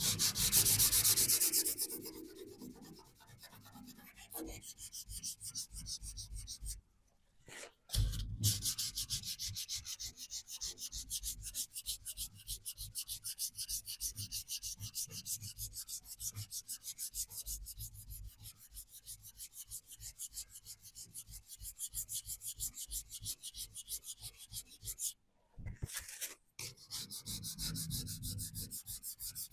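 Primed steel bodywork of a VW T25 van being rubbed down by hand with an abrasive, in quick, even back-and-forth strokes. The strokes stop briefly twice, about seven seconds in and again near the end.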